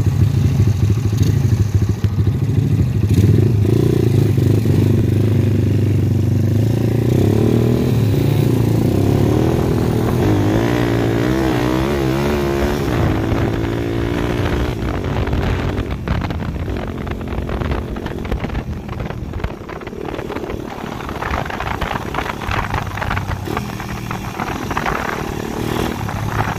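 Small dirt bike engine running during a ride over a dirt track, its pitch rising and falling with the throttle about ten seconds in. In the second half the sound turns rougher, with rattling and knocks from the bike over the bumpy ground.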